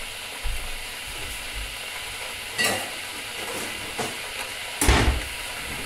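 Footsteps and kitchen items being handled at a counter: a few knocks and clatters, the loudest a thump about five seconds in, over a steady hiss.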